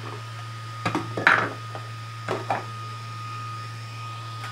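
A few knocks and clinks of kitchen things being handled beside an electric blender that is not running: a pair about a second in and another pair about two and a half seconds in. Under them runs a steady low hum.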